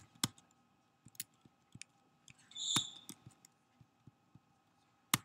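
Scattered, faint keystrokes on a laptop keyboard, single clicks spaced well apart, with a short squeak about two and a half seconds in.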